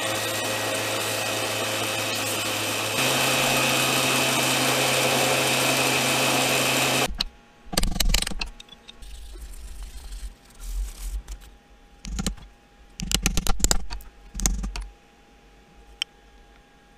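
A bench sander runs steadily with a low hum that steps up slightly in pitch and loudness about three seconds in, as a wooden knife-handle scale is held to it. It cuts off about seven seconds in, and scattered knocks and taps follow as wooden scales are handled on a metal workbench, with one sharp click near the end.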